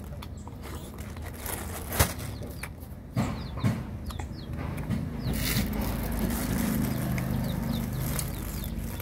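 Chickens clucking, with repeated short chirps of small birds, from about halfway through. A sharp knock comes about two seconds in, then a couple of thumps a second later.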